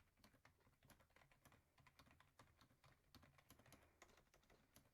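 Faint computer keyboard typing: quick, irregular key clicks, several a second.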